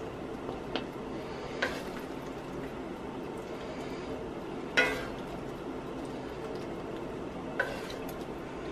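Wooden spatula scraping and knocking against a cast iron skillet and a plate as pasta is dished out, with a few short knocks, the loudest about five seconds in, over a steady background hum.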